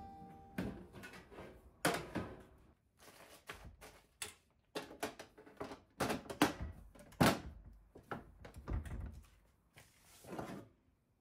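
Galvanized steel storage boxes handled and set down on a wooden shelf: a run of metallic clanks, knocks and short scrapes as the lids and boxes are placed and slid. The loudest knocks come about two seconds in and again around six to seven seconds in.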